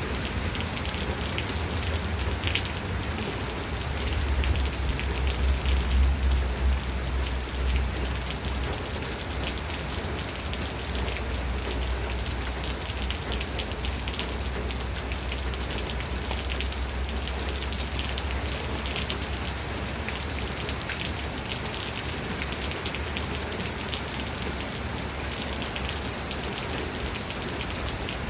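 Steady rain falling on a surface, with many individual drops ticking sharply. A low rumble swells and fades about four to eight seconds in.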